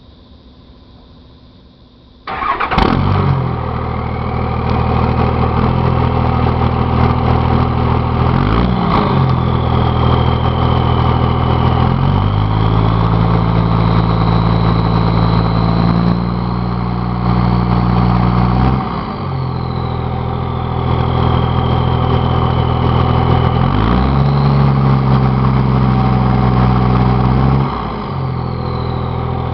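1999 Dodge Cummins 24-valve diesel starting about two seconds in, then idling and revved up and held a few times. A high turbocharger whistle rises and falls with the engine speed.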